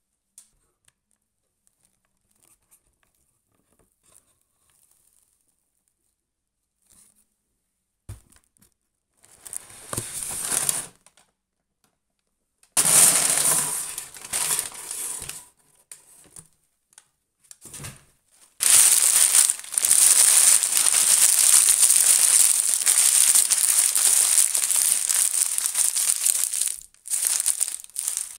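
Brown kraft packing paper rustling and crinkling as it is pulled out of a cardboard box and crushed by hand into a ball. It is quiet for the first several seconds, then comes in short bursts. The longest, loudest stretch of steady crinkling comes in the second half.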